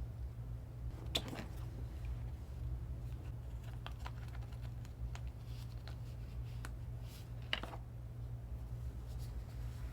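Packaging being handled: scattered light clicks and two short crinkling rustles, about a second in and again near the end, over a steady low hum.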